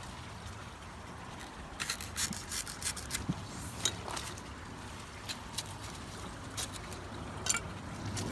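Faint rustling of leaves and stems being brushed and handled, with scattered light clicks and scrapes over a low steady background hum.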